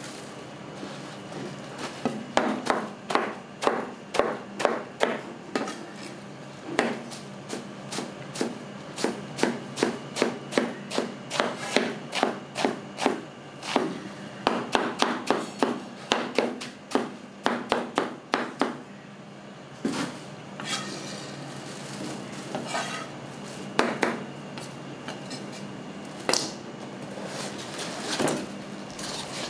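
Kitchen knife chopping on a cutting board in a steady rhythm of about two to three strokes a second, stopping about two-thirds of the way through, followed by a few scattered knocks.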